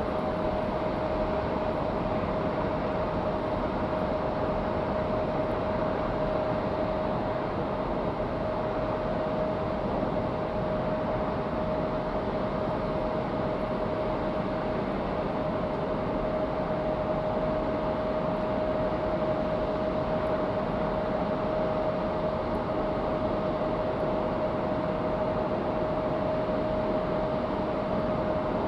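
Steady engine drone of aircraft on an airport apron, holding one constant whine-like tone over a continuous rushing noise, unchanging throughout.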